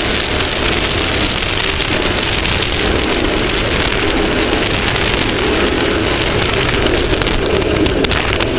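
Off-road race vehicle driving at speed, picked up by a front-mounted camera: a steady, loud rushing of wind, tyres and dirt over the drone of the engine.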